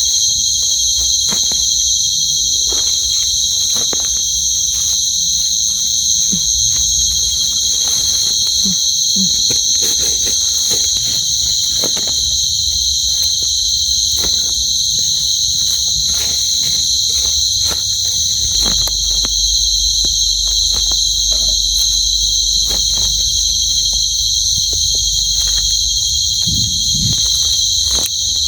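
Night insect chorus, a steady, continuous shrill trilling of crickets in two high pitches, with scattered small clicks and rustles.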